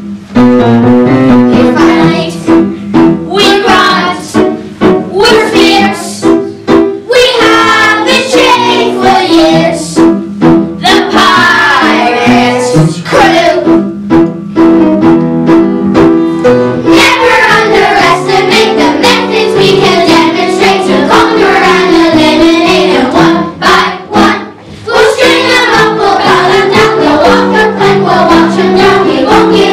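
A group of children singing a song together, accompanied by piano.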